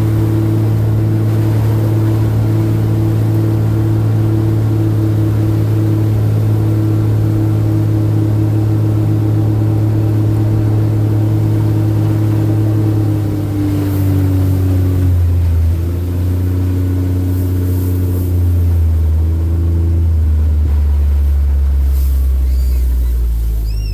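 Motor vehicle engine running steadily with road noise; in the second half its pitch steps down several times and settles lower.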